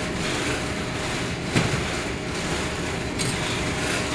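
Steady drone of a container ship's machinery, with a faint steady hum and one short knock about a second and a half in.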